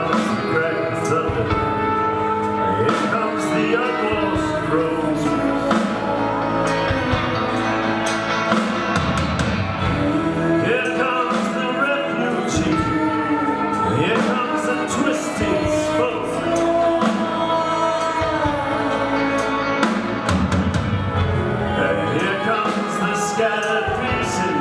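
Live band playing a song: drum kit, guitars and keyboard, with sung vocals over them.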